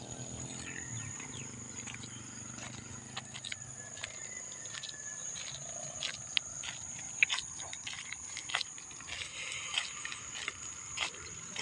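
Footsteps on a concrete road, short light taps coming about every half second or so, under a steady high-pitched whine. A low rumble fades out over the first few seconds.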